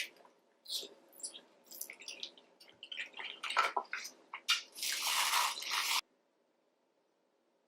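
Close-miked mukbang eating sounds: wet squishing, smacking and clicking of chewing saucy seafood, with a louder, denser stretch of crackly squish near the middle. The sound cuts off abruptly to silence about six seconds in.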